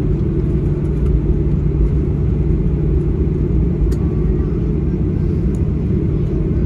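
Boeing 737-800 cabin noise: a steady low rumble of the CFM56-7B engines and airframe, with a constant low hum and a few faint clicks.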